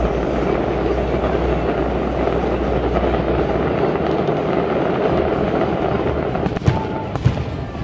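Fireworks display: a dense, steady crackle and rumble from the aerial shells, then two sharp booming shell bursts about six and a half and seven and a quarter seconds in.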